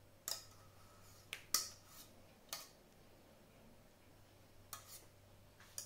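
Light clicks and taps of kitchenware, about eight in all and irregular, with a gap of about two seconds in the middle.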